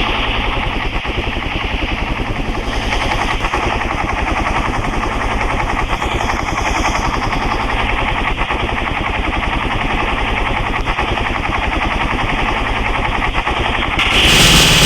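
Helicopter rotor chop, a steady fast pulsing beat. Near the end a louder, harsher sound cuts in over it.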